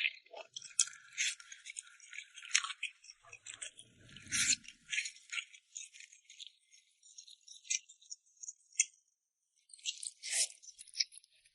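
Close-miked eating sounds of rice noodles in red chili oil: wet, crackly mouth and noodle noises in irregular short bursts.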